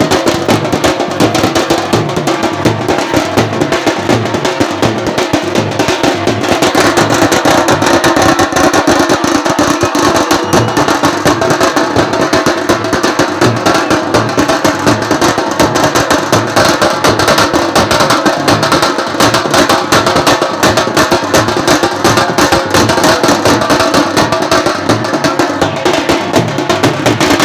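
Loud, fast drumming: rapid drum strokes running on without a break, with a steady held tone underneath.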